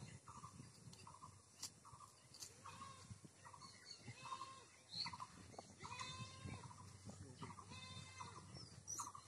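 Faint bleating of a goat, several drawn-out calls, over a short call repeated again and again.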